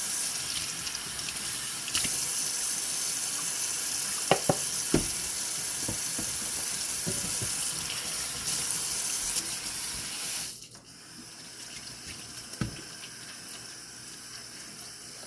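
Kitchen tap running into a sink while a bowl lid is washed by hand, with a few short knocks of the lid against the sink. The flow drops sharply about ten seconds in.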